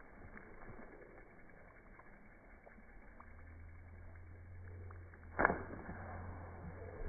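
A hooked matrinxã breaks the water surface once with a short, sharp splash about five and a half seconds in, over faint background noise. A low steady hum starts about three seconds in.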